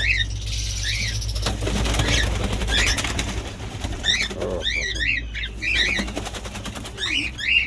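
Small aviary parrots calling with many short, shrill up-and-down chirps in quick succession, with a rustle of flapping wings a couple of seconds in.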